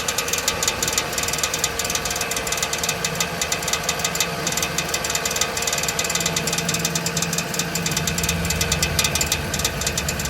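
Jeep Liberty V6 engine idling with a fast, steady metallic clatter: a faulty starter motor whose gear is touching the automatic transmission's flexplate.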